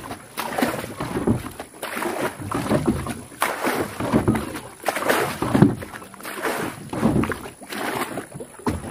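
Small boat on the water: irregular splashing and knocking strokes, roughly two a second, typical of a rowboat being paddled or moved about.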